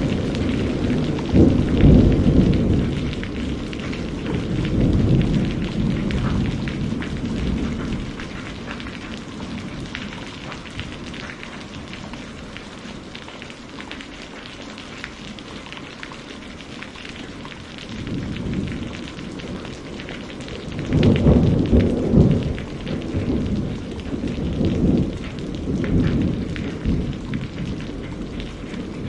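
Steady rain falling, with thunder rolling in twice: a long low rumble at the start that fades over several seconds, and another that builds about two-thirds of the way through and then dies away.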